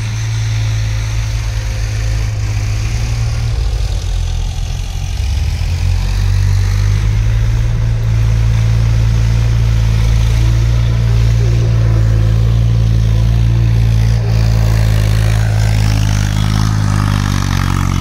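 Massey Ferguson 241 DI Maha Shakti tractor's three-cylinder diesel engine running steadily while pulling a tined cultivator through ploughed soil. It grows louder about six seconds in as it comes closer, and its note rises slightly near the end.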